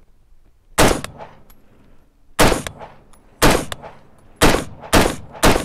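Stag Arms 3-Gun AR-15 rifle with a muzzle brake firing six single .223 shots. The first shots are a second or more apart; the last three come about half a second apart.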